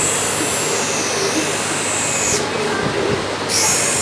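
Optician's electric lens-grinding machine running with a steady drone and a high grinding hiss. The hiss drops out for about a second past the middle, then comes back.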